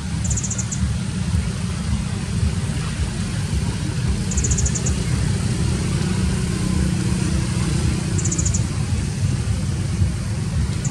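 Wind buffeting the microphone, a loud, unsteady low rumble. A short, high, rapid trill repeats about every four seconds.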